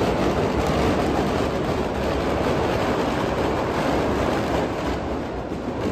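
Firecrackers in a burning Ravan effigy going off in a rapid, unbroken barrage: a dense crackling roar that eases slightly near the end.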